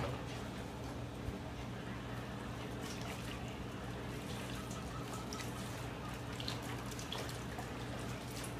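Water poured from a plastic jug trickling over a dog's back and dripping into a galvanized metal washtub, over a steady low hum.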